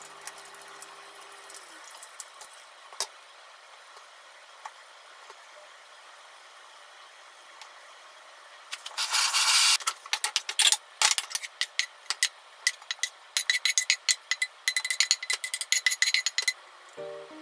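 Quiet, soft handling of bread being pressed into beaten egg, then from about halfway a wooden spatula scraping and knocking against a nonstick frying pan as stir-fried vegetables are pushed out into a bowl. The second part is a fast run of scrapes and clacks.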